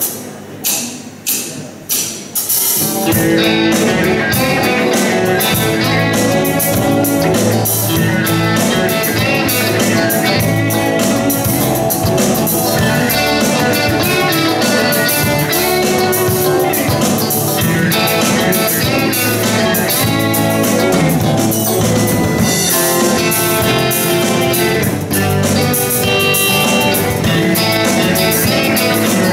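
A few evenly spaced clicks, about two a second, count in, and then a guitar band of electric and acoustic guitars with a drum kit starts playing together and keeps playing.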